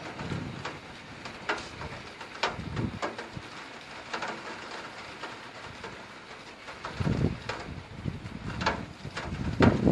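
Thunderstorm: thunder rumbling in irregular low swells with scattered sharp cracks, over a steady hiss of heavy rain. The rumble swells up about seven seconds in and again near the end.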